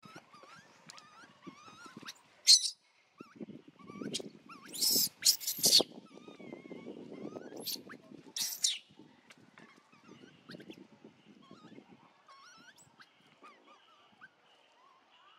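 Baby long-tailed macaque screaming in several short, shrill bursts as its mother grabs and disciplines it, the loudest between about two and nine seconds in. A lower rustling scuffle runs under the middle screams.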